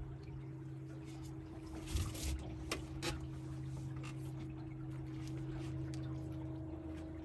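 Boat motor running steadily at low speed, a low even hum, with water lapping against the hull. A short splash-like rush comes about two seconds in, then two sharp clicks.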